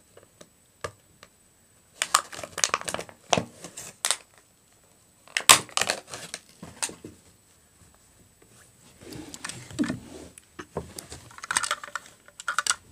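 Plastic and cardboard toy packaging crinkling and crackling in short irregular bursts as it is handled and pulled apart.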